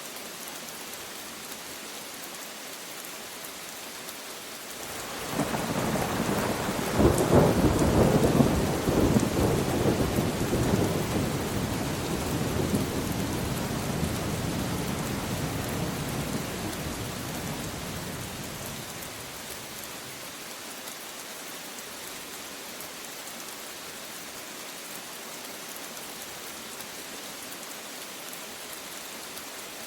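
Steady rain falling, with a roll of thunder that swells about five seconds in, crackles at its loudest a few seconds later and rumbles away over some ten seconds, leaving the rain alone.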